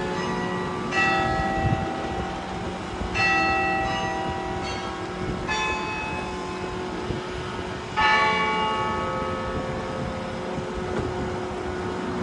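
Church bells ringing: a handful of separate strokes at uneven intervals, each ringing on and fading. The loudest stroke comes about eight seconds in, over a steady low hum.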